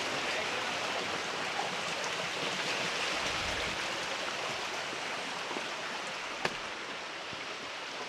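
Steady rush of flowing water from the rocky stream at the waterfall. There is a single sharp click about six and a half seconds in.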